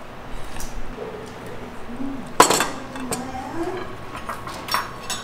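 A metal spoon clinking and scraping against a ceramic bowl and plates as sauce is spooned out: a few light clicks, with one sharp clink about two and a half seconds in.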